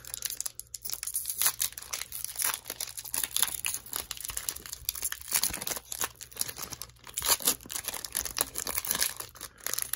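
Foil trading-card booster pack wrapper being torn open and crinkled by hand, with irregular crackling throughout.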